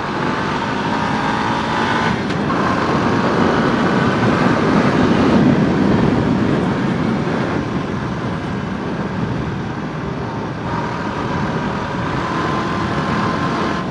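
Riding lawnmower's engine running as it drives along, with a thin high whine over it that comes and goes. The rider says the whine sounds like a turbo.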